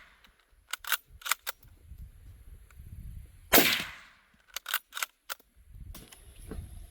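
A 1942 Mosin-Nagant bolt-action rifle in 7.62×54R fires a single loud shot about three and a half seconds in, which rings out briefly. Before and after the shot come quick runs of about four sharp metallic clicks as the bolt is worked.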